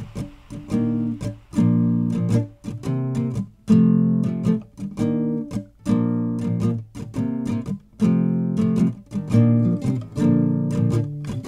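Acoustic guitar strumming chords in a steady, even rhythm, with no singing: the instrumental intro of a song.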